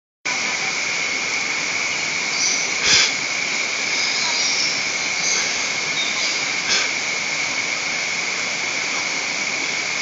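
Rainforest creek ambience: the steady rush of water running over rocks, under a constant high insect drone. Two brief knocks, about three seconds in and again near seven seconds.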